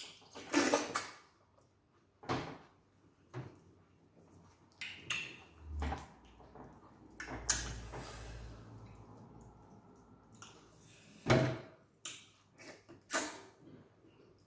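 Close-up eating sounds of people eating okra soup and starch with their hands: scattered wet smacks and slurps of sticky okra. A longer muffled rustle comes around the middle.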